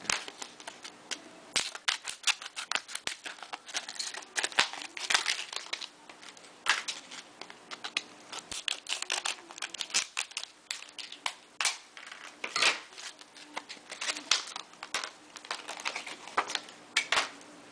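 Hands opening the retail plastic packaging around a graded trading card: an irregular run of sharp clicks, snips and crinkles.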